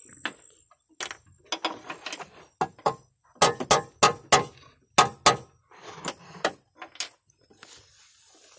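Irregular sharp clacks and knocks of hand tools and parts being handled in a vehicle's engine bay, thickest and loudest in the middle and thinning out near the end.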